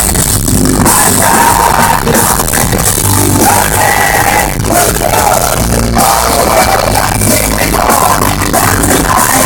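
Live rock band performing with sung vocals, recorded through a phone's microphone at loud volume, so the sound is distorted and overloaded.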